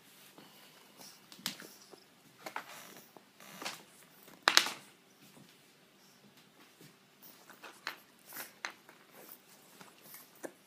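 A French bulldog-pug puppy chewing and nosing a chew stick on his dog bed: scattered short clicks and scuffs, the loudest about four and a half seconds in.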